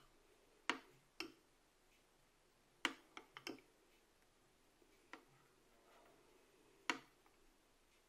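Metal spoon clinking against a small glass bowl while stirring thick caramel sauce: scattered sharp taps, a quick cluster of them around three seconds in and another sharp one near seven seconds.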